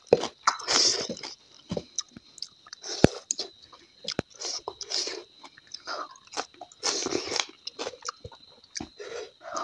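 A person chewing and biting food close to a clip-on microphone: wet, smacking mouth noises with crunches of crisp fried bits, in irregular bursts. A faint steady high whine runs underneath.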